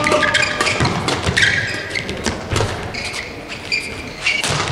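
Badminton doubles rally: rackets striking the shuttlecock with sharp cracks, mixed with thuds of footfalls and short high squeaks of shoes on the court.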